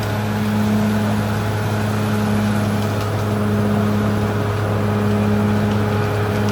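Caterpillar D6R XL bulldozer's diesel engine running steadily under load. Its low drone pulses slightly about every second and a half.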